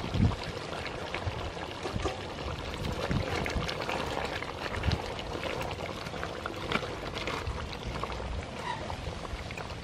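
Wooden spoon stirring thick, simmering chicken curry in a large aluminium pot: wet sloshing and bubbling with scattered knocks and scrapes of the spoon against the pot. A low thump just at the start.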